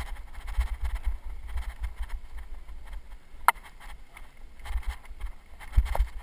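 Mountain bike riding over a rough dirt trail: a constant low rumble with irregular bumps and rattles, a sharp click about three and a half seconds in and a heavier thump near the end.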